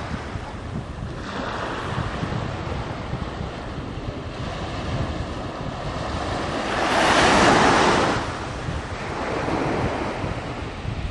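Steady wind and sea-water noise, with a louder rush about seven seconds in that dies away a second later.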